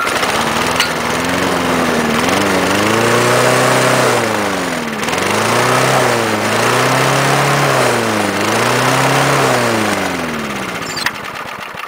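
Sears Craftsman push mower's small single-cylinder engine revving up and down about four times under a homemade cable throttle rigged to its governor arm, then dying down near the end. It has no idle because its throttle spring is stretched out.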